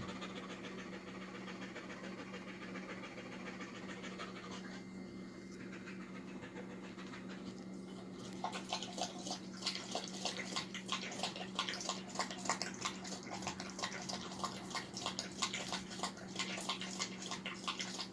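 A puppy panting rapidly. The breaths become louder and sharper about eight seconds in.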